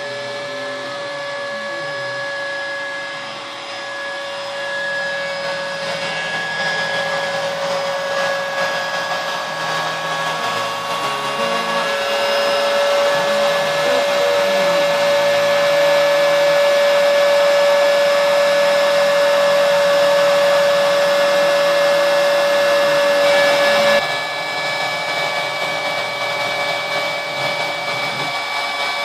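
Router spindle on a homebuilt CNC machine running with a steady whine as it carves a wooden sign, while the stepper motors driving the axes add low tones that shift in steps as the machine moves. Near the end the sound changes abruptly: the main whine drops away and a higher tone takes over.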